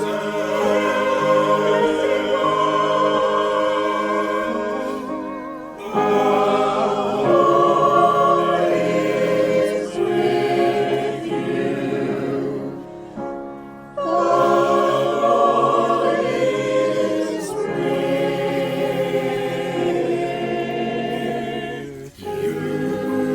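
A choir singing sacred music, voices with vibrato in long held phrases, with short breaks between phrases about every eight seconds.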